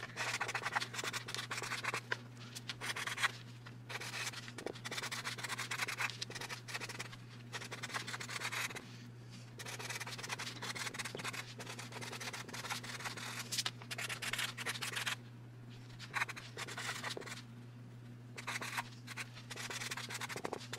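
Sharpie marker writing on a card, in short irregular strokes with brief pauses, as a handwritten note is written; a low steady hum underneath.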